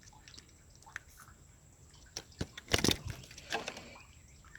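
A few short, soft splashes and knocks with quiet in between, the loudest cluster nearly three seconds in: water and handling noises around a freshly landed fish.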